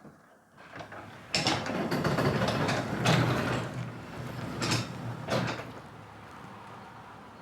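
Sectional garage door moved by hand along its steel tracks, its rollers rumbling. There are two sharp knocks about five seconds in, and then the sound eases off.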